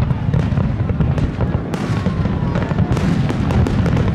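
Large fireworks display: a dense, continuous barrage of shell bursts and crackling pops over a heavy low rumble, with a faint falling whistle about two seconds in.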